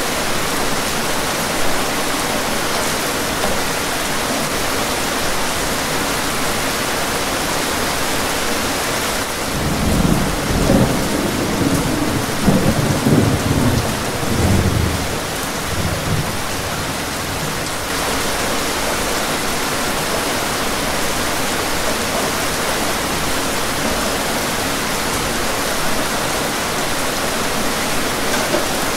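Steady rain falling, with a rolling rumble of thunder starting about a third of the way in that swells unevenly for several seconds and fades.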